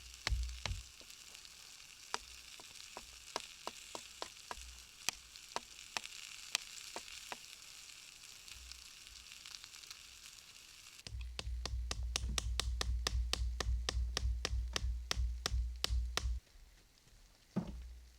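Food sizzling in a pan, a steady hiss with many sharp pops. About eleven seconds in, a low rumble joins for about five seconds.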